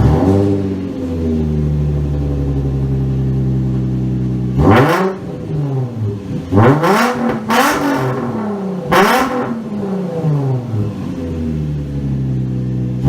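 2005 Infiniti G35's V6 exhaust, through a gutted, rusted stock muffler with holes in it and a Megan Racing test-pipe mid pipe, idling loudly and echoing in a garage. About five seconds in it is revved in four quick throttle blips over four seconds, each climbing and falling back, before it settles to idle again.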